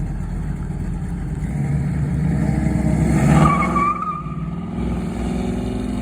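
Car engine running, revved once so that it climbs to a peak about three and a half seconds in, then drops back sharply to a steady run.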